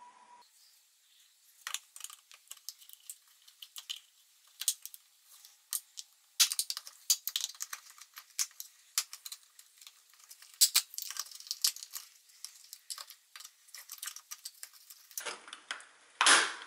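Small screwdriver prying at the seams of a plastic Intermatic timer case: a run of irregular sharp plastic clicks, snaps and scrapes. Near the end a louder crack and clatter as the case comes apart.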